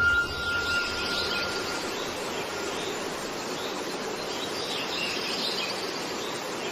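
Birds chirping over a steady outdoor hiss, with a brief ringing tone at the start.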